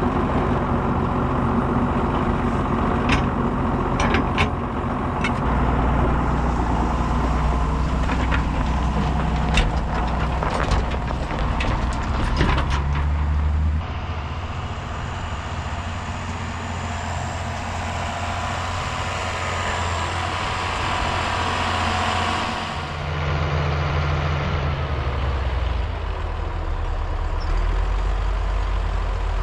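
Heavy farm machinery engines running with a steady deep hum, and scattered sharp clanks and knocks over the first half. The engine sound shifts abruptly about 14 seconds in and again about 22 seconds in.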